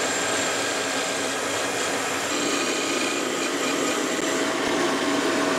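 Drill press running steadily as a 10 mm bit bores a counterbore into a wooden block; an even, unchanging machine noise.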